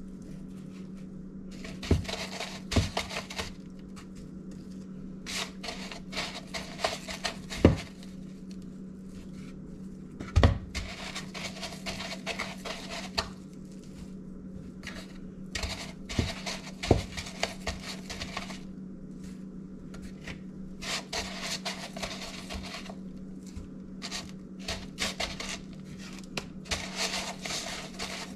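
Breadcrumbs rustling and scraping against a plastic bowl as dough rolls are turned and coated in them by hand, with a few short thumps as rolls are set down or the bowl is knocked. A steady low hum runs underneath.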